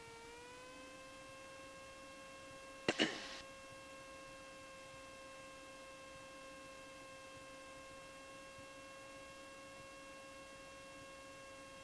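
Faint, steady electrical whine in the Cessna 172's cockpit intercom audio, a single pitch with overtones that rises slightly in the first second. A short sharp click comes about three seconds in.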